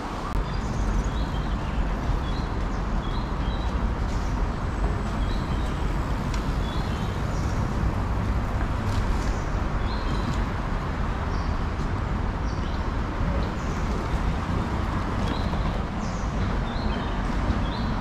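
Small birds chirping, short high calls repeating about once a second, over a steady low rumble of city background noise.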